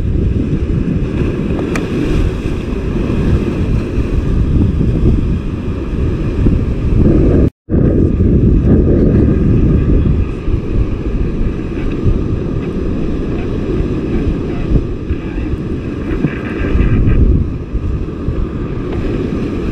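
Strong wind buffeting a chest-mounted camera's microphone, making a loud, steady low rumble. The sound drops out completely for a moment about seven and a half seconds in.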